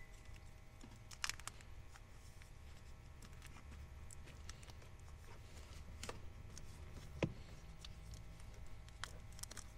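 Faint clicks and rustles of hands wrapping electrical tape around a wiring harness and handling the wires, with a sharper click about seven seconds in, over a low steady hum.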